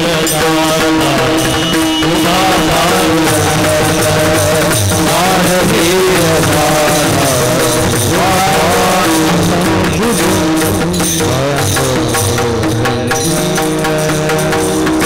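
Male voices singing a Warkari kirtan chal (devotional melody) to the clashing of brass hand cymbals (taal) struck in rhythm, over a steady held note. The singing is loud and continuous, with a drum under it.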